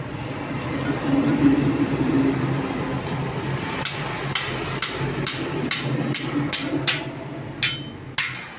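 Hammer strikes, starting about four seconds in and repeating about two to three times a second, over a steady low hum.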